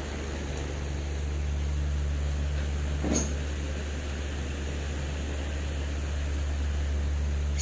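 A steady low hum, with one brief sharp sound about three seconds in.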